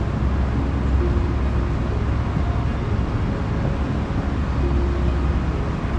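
Steady low rumbling outdoor noise with no distinct events, and a few faint brief tones now and then.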